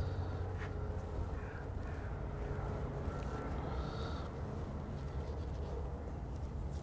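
Knife slicing through a raw leg of lamb on a wooden cutting board while it is boned: faint scrapes and small clicks over a steady low hum.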